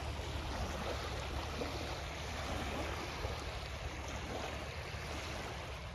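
Small waves lapping onto a pebble shore of a large reservoir, a steady wash of water.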